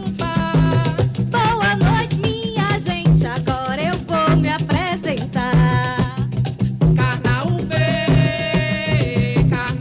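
Live Brazilian coco de roda music: a voice singing a melodic line over hand drums and a shaker rattle that keep a steady, driving beat.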